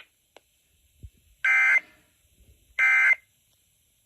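Emergency Alert System end-of-message signal: two short, identical buzzing bursts of SAME digital data tones, about 1.3 seconds apart, sent after the voice warning to mark the end of the alert.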